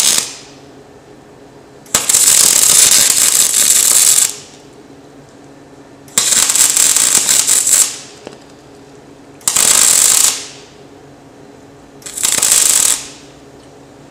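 Wire-feed welder arc crackling in short runs of one to two seconds with pauses between: four runs after the tail of one at the very start. These are tack welds on a bolt end to keep its nut from backing off.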